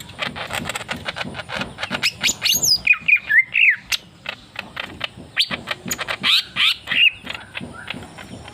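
Leafbird (murai daun) singing a fast, chattering song of clicks and sharp notes, with stretches of louder sliding whistles about two and six seconds in.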